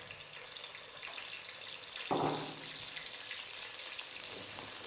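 Silkworm moths deep-frying in a wok of hot oil: a steady crackling sizzle of oil bubbling around them, with one brief louder sound about two seconds in.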